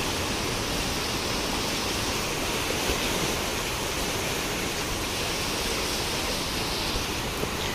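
Steady rush of the flooded Ganga's fast, forceful current churning past the ghat.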